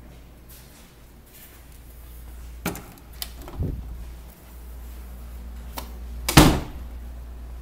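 A door's latch clicking a few times, then the door thudding shut near the end, over a steady low hum.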